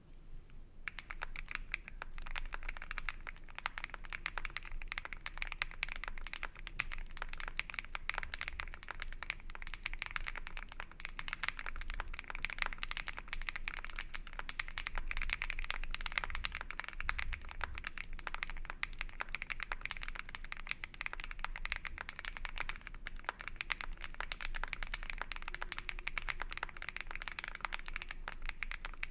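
Continuous typing on a mechanical keyboard fitted with PBT keycaps: a dense, unbroken run of key clicks that starts about a second in.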